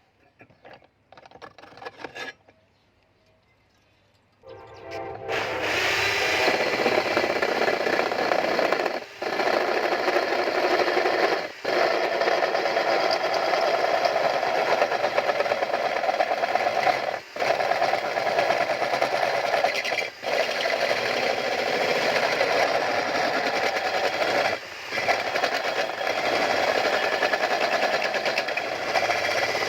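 A few light clicks and knocks, then about four and a half seconds in a power tool starts and runs steadily, cutting out briefly several times.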